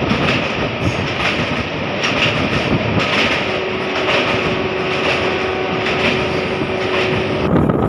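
Passenger train's coaches running across a river bridge, heard from an open sleeper-coach window: a steady loud rumble with a regular wheel clatter. A faint steady tone sounds through the middle, and the sound changes suddenly near the end.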